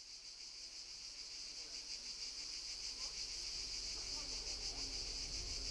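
A dense chorus of insects chirring, a steady fast-pulsing high-pitched buzz that fades in from silence and grows steadily louder.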